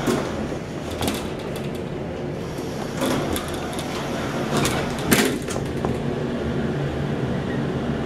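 Center-opening elevator doors sliding shut, with clicks and rattles from the door gear and a loud clunk about five seconds in as they close, over a steady low hum.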